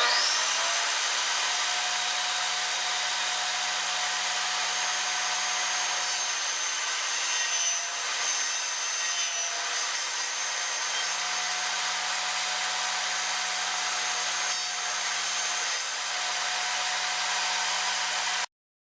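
Table saw running and cutting a sheet of acrylic plexiglass, its blade set barely above the table so the carbide teeth only just pass through the sheet to keep it from splintering. A steady whine with a high tone and a lower hum, dipping slightly a few times, starts abruptly and cuts off suddenly near the end.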